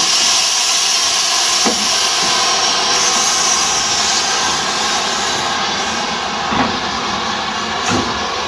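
Steady hiss of steam from a 1909 bi-cabine narrow-gauge steam tank locomotive, easing after about three seconds, with a few light knocks as it is swung round on a turntable.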